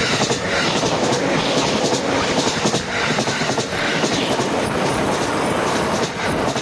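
JR Sobu Line train passing close through a level crossing: a loud, steady rush of wheels on rail with rapid clacks over the rail joints, dropping off sharply near the end as the last car goes by.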